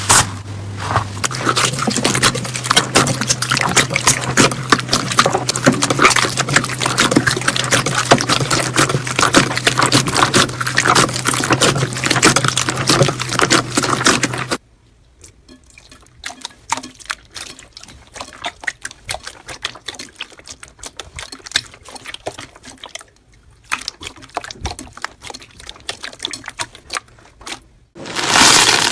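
Slime being squished and worked by hand: dense, wet crackling and popping clicks over a low steady hum, then, after a sudden change about halfway, a quieter stretch of sparser sticky clicks.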